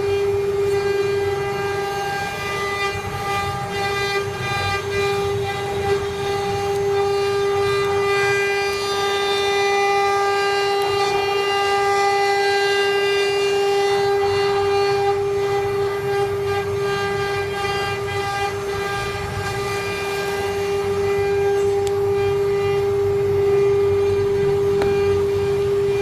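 CNC router spindle running with a steady high whine, one unchanging tone with overtones, over a low rumble.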